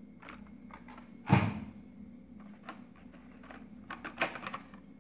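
Hot Wheels cars in plastic blister packs on cardboard cards being handled and shuffled through: a series of clicks and rustles, with one louder knock just over a second in and a quick run of clicks near the end.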